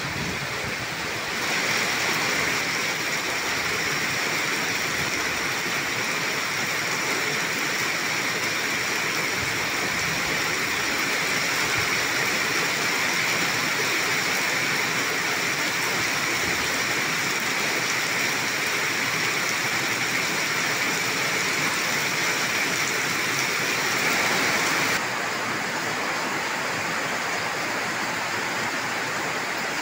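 Heavy tropical downpour: a steady hiss of rain falling and splashing on wet ground. It grows louder and brighter about a second and a half in, and turns duller near the end.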